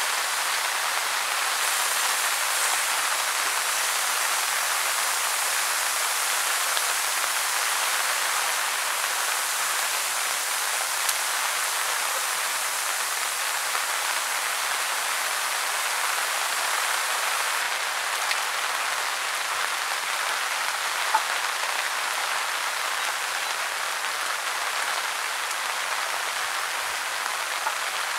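Rain falling steadily, an even hiss with an occasional louder drop.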